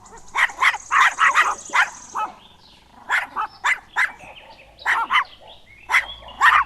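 A puppy yapping: short, high barks in quick clusters of two to four, with pauses of about a second between clusters.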